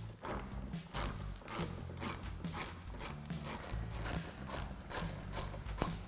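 Hand ratchet with a T25 Torx socket on an extension clicking as it loosens a vertical Torx screw, the pawl ticking on each back-swing in a steady run of about three or four clicks a second.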